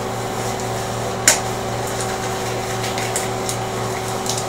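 Gloves being pulled on: one sharp snap about a second in, then a few lighter clicks and rustles, over a steady mechanical hum.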